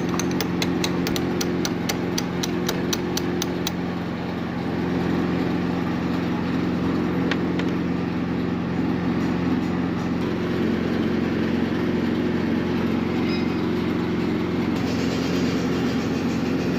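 Concrete pump truck's engine running steadily. Over it, a rapid high ticking of about four to five clicks a second stops a few seconds in.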